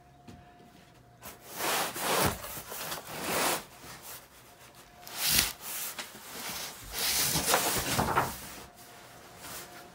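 Large cardboard case of toilet paper rolls being carried and set down in a small room: cardboard scraping and rubbing in several stretches, with two knocks, one about two seconds in and one about halfway.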